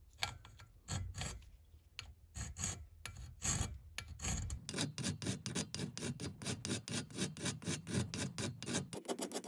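Round hand file rasping across a small metal part held in a bench vise. The strokes come slow and uneven at first, then settle into a quick, steady rhythm of several strokes a second about halfway in, cutting a curved profile by hand.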